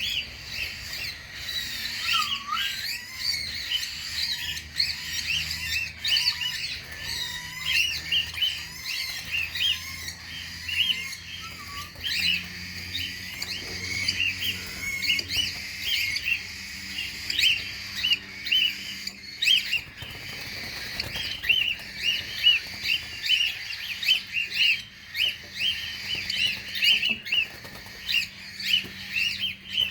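A flock of cockatiels chirping without a break, with many short calls overlapping in a dense chorus.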